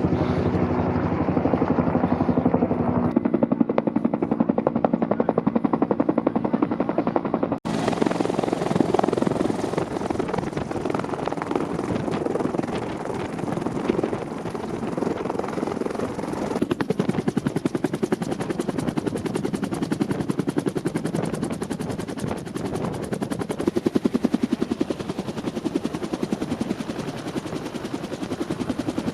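Helicopter rotor chopping steadily in a rapid, even beat with engine noise. About eight seconds in the sound breaks off abruptly and carries on brighter and thinner.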